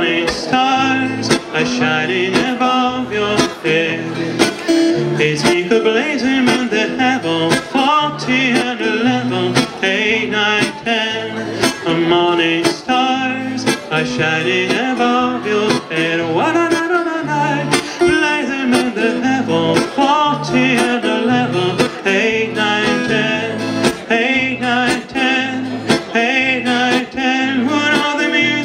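A man singing a song while strumming an acoustic guitar in a steady rhythm.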